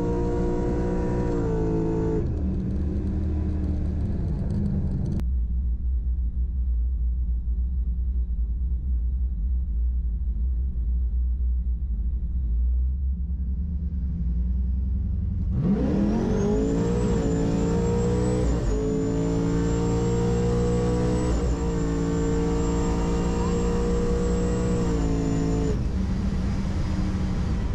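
Supercharged Pontiac G8 GT LS V8 heard from inside the cabin, first running and then idling low. About two-thirds of the way through it launches: the revs climb sharply and the supercharger's high whine rises with them. The engine is held at high revs for about ten seconds with a few small steps where it shifts, then lets off near the end, the length of a quarter-mile pass of about ten seconds.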